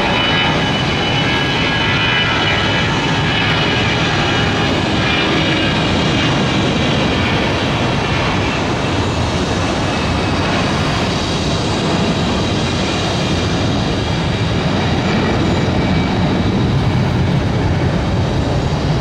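Twin-engine jet airliner at takeoff power through its takeoff roll and liftoff: a steady rumble, with a high engine whine over it in the first several seconds.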